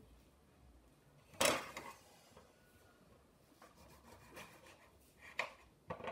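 Kitchen handling noises while lemons are squeezed by hand into a blender jar: one sharp knock about a second and a half in, then a few lighter knocks and rubbing, and another knock near the end.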